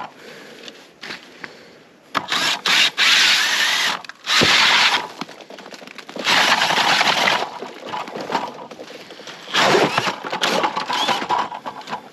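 Cordless drill spinning an ice auger down through lake ice in repeated short bursts, the bit grinding and crunching through the ice.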